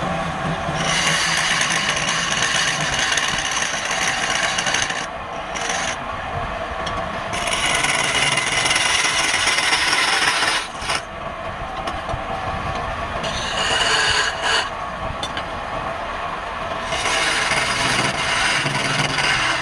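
Wood being worked against the spinning stock on a woodturning lathe, a rasping, rubbing sound over the lathe's low hum. It comes in four passes of a few seconds each, with brief easings in between.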